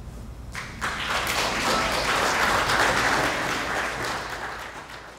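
Audience clapping: the applause starts a little under a second in, swells, then dies away toward the end.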